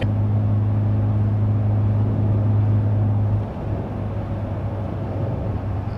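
In-cabin sound of a 2022 Toyota Tundra's twin-turbo V6 with an aFe Vulcan stainless cat-back exhaust, cruising at highway speed near 1900 rpm. It gives a steady low hum over road and wind noise, easing a little about three and a half seconds in.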